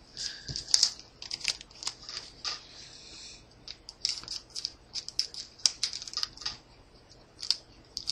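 Trading cards and a booster-pack wrapper being handled: a run of quick, irregular crinkles and clicks.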